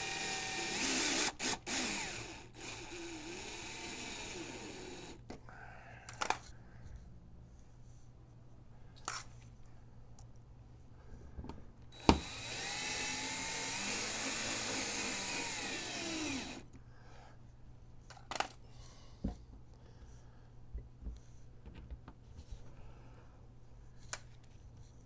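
Power drill driving self-tapping screws into a thin plastic panel: the motor runs twice, about five seconds and then about four and a half seconds, its pitch sagging and rising as each screw bites. Sharp clicks and knocks fall between and after the runs.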